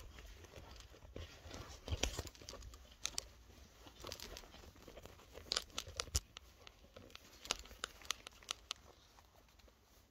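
Rustling and scattered sharp clicks of a handheld phone camera being moved and handled, with fabric rubbing against the microphone.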